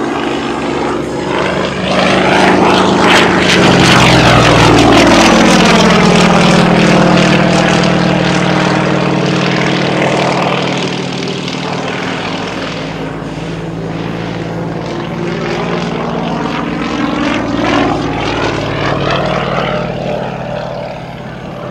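Pitts Model 12 aerobatic biplane's nine-cylinder radial engine and propeller in flight through aerobatic maneuvers, the engine note rising and falling in pitch. It is loudest a few seconds in, where the pitch sweeps downward as it passes. It fades through the middle and swells again near the end.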